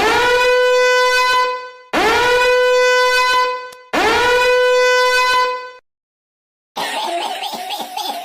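A horn sound effect blown three times, each a long blast that swoops up into a steady note and is played identically each time, with short gaps between. A different, rougher sound effect starts near the end.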